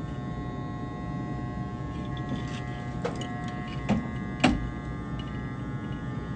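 A steady electric hum made of several held tones. A few light knocks break it, the sharpest about four and a half seconds in.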